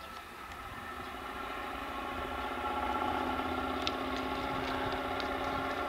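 Diesel locomotive engine running with a steady hum. It grows louder over the first few seconds as the locomotive approaches, then holds.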